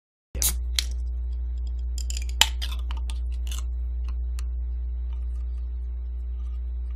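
Scattered clicks and light knocks from hands handling things at a desk, the sharpest one about two and a half seconds in, over a steady low hum.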